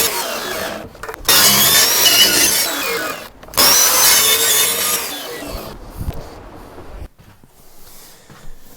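Power saw cutting through a wooden internal door in three runs, then winding down about five seconds in.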